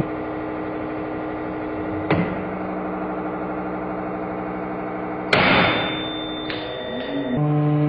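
Hydraulic press humming steadily as it bends a steel knife blade clamped in a vise. About five seconds in, the blade snaps with a sudden loud crack, followed by a high ringing tone for about a second and a half.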